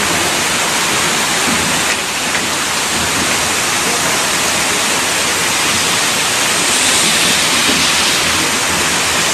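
Torrential rain: a loud, steady hiss of a heavy downpour, growing a little louder about three-quarters of the way through.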